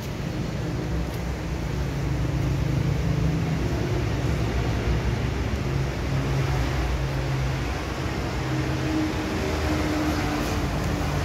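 A vehicle engine running at a steady idle: a continuous low hum.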